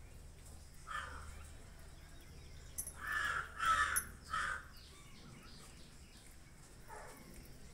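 Crow cawing: a single caw about a second in, then a run of three louder, harsh caws from about three to four and a half seconds in, and one fainter caw near the end.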